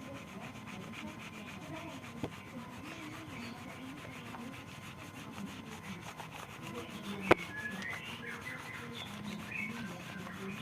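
Steady rubbing noise, with a small click about two seconds in and a single sharp click about seven seconds in. Faint bird chirps come through in the second half.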